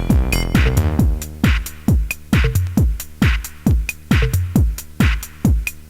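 Techno track: a drum machine kick falling in pitch on every beat, about twice a second, with off-beat hi-hat hits. A dense wash of synth tones drops away about a second in, leaving mostly the bare kick and hats.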